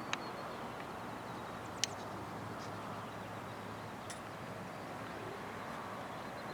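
Steady outdoor background noise with two short sharp clicks, one just after the start and one just under two seconds in.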